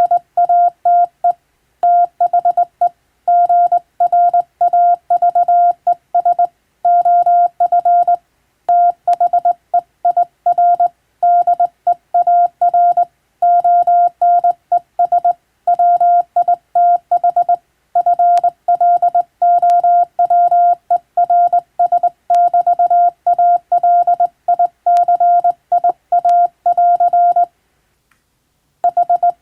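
Hand-keyed Morse code: a steady mid-pitched tone keyed on and off in quick dots and dashes grouped into characters and words, with a pause of about a second and a half near the end.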